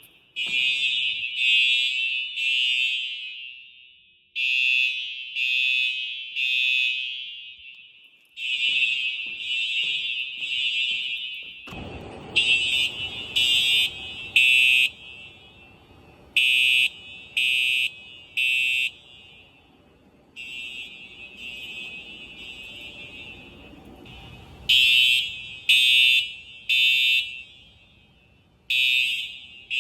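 Simplex TruAlert fire alarm horns sounding the code-3 temporal pattern, three blasts and a pause, repeating, with each blast echoing on in a large room. A low rumble of background noise runs under the horns from about twelve seconds in until about twenty-five seconds in.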